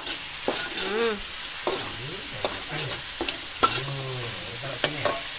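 A metal spatula scraping and clicking irregularly against a metal wok as a ground chilli spice paste is stirred, the paste sizzling steadily in hot oil. The paste has fried until done.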